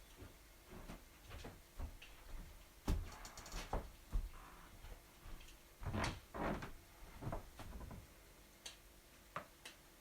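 Wood fire in a fireplace crackling, with irregular pops and snaps; louder clusters of pops come about three seconds in and again around six seconds.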